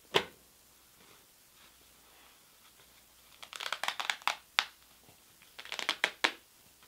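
A plastic wipes-canister lid snaps shut with one sharp click at the start. After a pause, an Alpet D2 heavy-duty nonwoven sanitizing wipe is stretched and tugged hard between two hands in two spells of crinkly rustling, about two seconds apart, and it holds without tearing.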